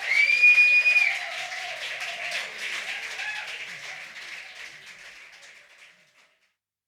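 Audience applauding and cheering after a live set, opening with one loud whistle held for about a second, with a few shouts. The applause fades out and stops about six seconds in.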